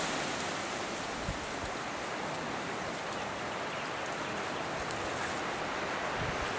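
Steady hiss of wind and rustling brush, with one faint knock about a second in.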